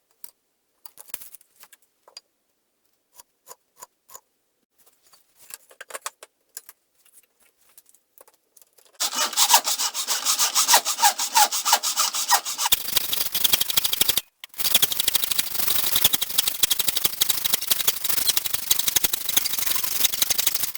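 A few light knocks as wood is handled. Then, from about nine seconds in, a hand saw cuts through wood with a continuous rasping, stopping briefly once about five seconds after it starts.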